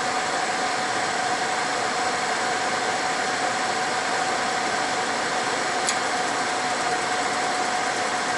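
Suburban SF-30 RV furnace's blower motor running steadily with a constant hum, before the burner has lit. A faint tick comes about six seconds in.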